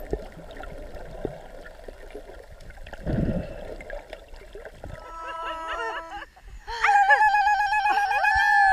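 Muffled underwater water noise with faint clicks for the first few seconds, then pitched tones that step up and down, and in the last seconds a loud, high, wavering held tone.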